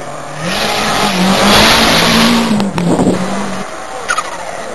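Rally car engine revving hard as the car races past close by, loudest about two seconds in with a rush of tyre and road noise. The engine note drops away suddenly about three and a half seconds in.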